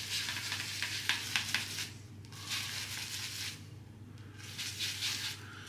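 Synthetic shaving brush swished and rubbed across a medium-firm shaving soap paste in its tub, loading the brush: three scratchy swishing passes, each about a second long.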